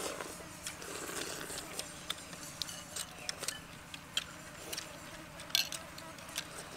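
People eating noodles with chopsticks from ceramic bowls: light, scattered clicks and taps of chopsticks against the bowls, with a sharper cluster of clicks about five and a half seconds in.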